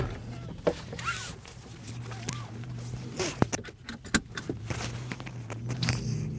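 Car seat belt being pulled across and buckled, with a few sharp clicks between about three and four seconds in as the latch snaps into the buckle, amid rustling of clothing against the seat. A low steady hum runs underneath.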